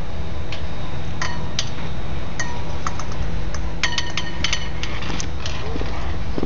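Metal halyard fittings clinking against a metal flagpole as a flag is clipped on for hoisting: a series of ringing metallic pings, several in quick succession about four seconds in, over a steady low rumble.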